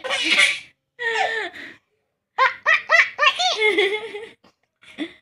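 Baby laughing in bursts: a breathy squealing laugh at the start, then after a short pause a run of quick high-pitched laugh pulses, with a brief last laugh near the end.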